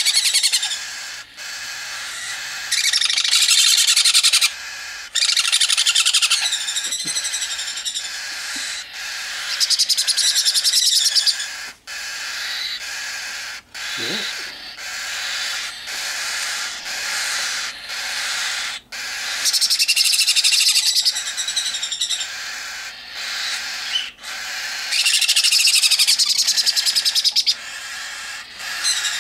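Baby sun conure and cockatiel chicks food-begging: loud, rapid, raspy calls in several bouts of one to three seconds each, with quieter calling between them.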